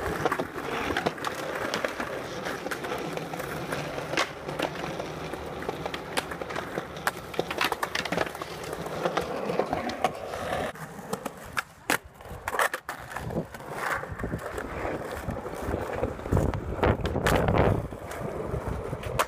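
Skateboard wheels rolling over smooth concrete, broken by sharp clacks of the board popping and landing. Near the end comes a louder, longer scrape as the board slides along a concrete ledge.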